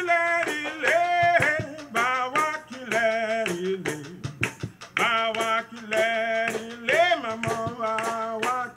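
A live Creole band playing: a man singing over accordion, fiddle, electric guitar and drums, with held notes that bend and glide and steady drum hits underneath.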